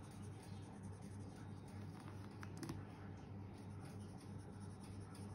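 Felt-tip marker scratching on paper as a savings-tracker circle is coloured in, with a few faint taps of the pen, over a low steady hum.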